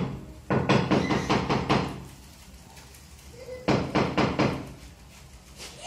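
Rapid hammer tapping, about eight quick strikes a second, in two runs of a second or two each with a short pause between.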